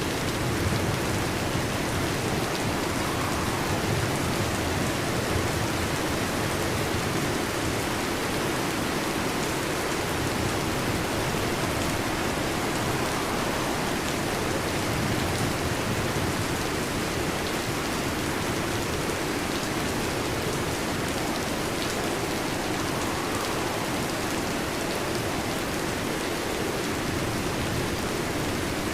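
Heavy rain falling steadily, an even unbroken hiss of drops.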